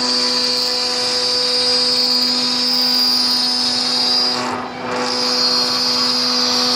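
CNC cutting machine running steadily with a constant hum and a high-pitched whine. The whine and the loudness dip briefly about four and a half seconds in, then resume.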